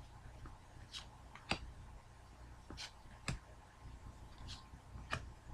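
Faint clicks of trading cards being handled and flipped through, coming in pairs about half a second apart, roughly every two seconds, over a low steady hum.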